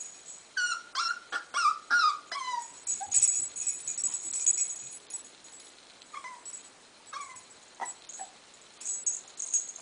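A 7-week-old puppy whimpering: short, high whines that each fall in pitch, five or six in quick succession about half a second in, then two more a few seconds later.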